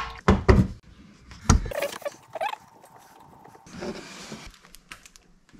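Several sharp knocks and clunks in the first second and a half, then quieter scraping and rustling: handling noise from hands and gear close to the microphone.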